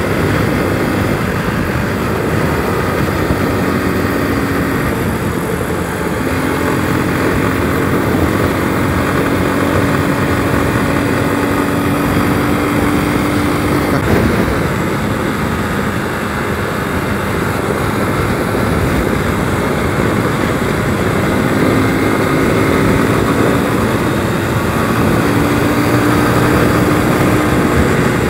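Motorcycle underway on the highway: the engine running steadily under heavy wind rush, its pitch climbing slowly, dropping back about halfway through, then climbing again.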